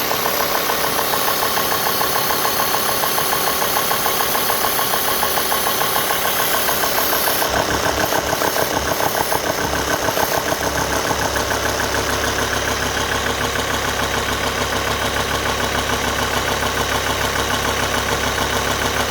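Alfa Romeo 2.4 JTDm five-cylinder diesel engine idling warm with a fast, even rhythmic clatter: the strange noise the owner hears once the coolant reaches 90 degrees. A steady low hum joins about halfway through.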